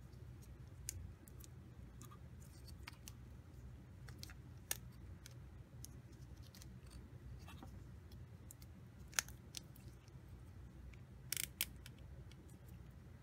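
Faint clicks and taps of unpainted figure-kit parts being handled and test-fitted in gloved hands, over a low steady hum. A sharper click comes about nine seconds in, and a short cluster of knocks near the end.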